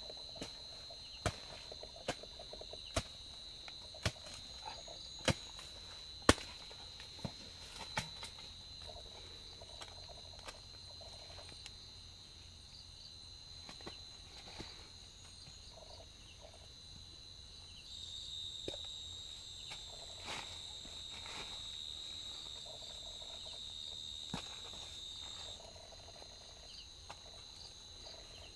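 A steel hoe chops into hard, dry soil about once a second for the first eight seconds; these strikes are the loudest sounds. After that come fainter scrapes and clicks of clods being broken and picked through by hand. Night insects chirp throughout in a steady high tone, and a second, higher one joins from about two-thirds of the way in to near the end.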